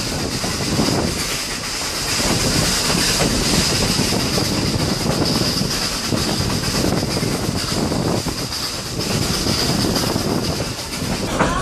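A passenger train running over jointed track on a curve, heard from an open coach window: a steady rumble of wheels on rails and a steady high wheel squeal that fades near the end.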